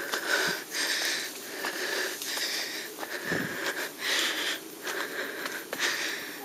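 A hiker's heavy, rhythmic breathing close to the microphone, about one breath a second, out of breath from a fast walking pace. Faint footsteps on the dirt trail are mixed in.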